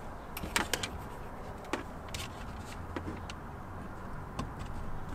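Several light clicks and taps, spread irregularly, from hands handling a rear-view mirror dash cam and tucking its thin power cable up along the headliner, over a low steady rumble.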